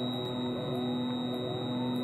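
The Aerostar 700 piston twin's engines run at full takeoff power during the takeoff roll: a steady drone with faint rising chirps repeating about twice a second.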